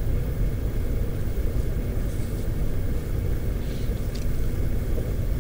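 Steady low rumble of classroom background noise, with a few faint, brief rustles about two and four seconds in.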